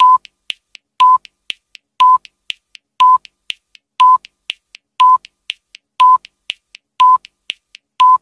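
Countdown timer sound effect: a short, loud beep once a second, with fainter clicking ticks in between.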